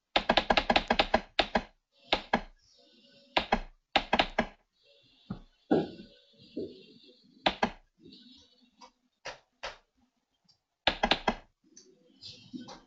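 Irregular dull knocks and taps. A rapid run of them comes in the first second and a half, then scattered clusters follow through the rest.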